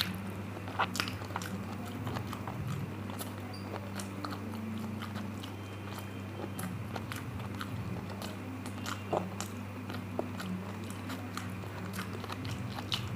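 Close-miked chewing of a mouthful of rice and curry, with sharp wet mouth clicks scattered through, over a steady low hum.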